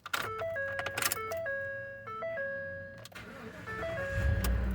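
2013 Ford F150 turned on: a short electronic chime tune of stepped notes, rising and falling, plays from the dashboard, then about four seconds in the engine starts and settles into a low, steady idle.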